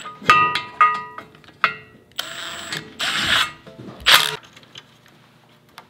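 Ratchet and long socket extension working the nuts on an equal-length header's turbo flange: two ringing metal clinks within the first second, then three short bursts of ratcheting.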